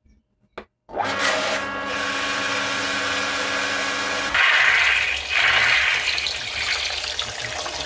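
Gardena garden pump switching on about a second in and running with a steady motor hum. About four seconds in, the sound changes to a louder hissing rush as water starts to flow through.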